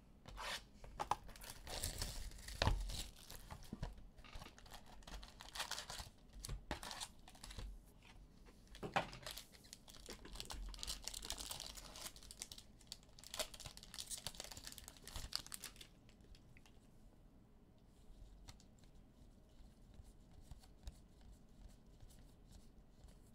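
Foil Panini Contenders football card packs being torn open and crinkled by hand, in repeated noisy bursts of wrapper rustling. After about sixteen seconds it goes much quieter, leaving only faint ticks of the cards being flipped through.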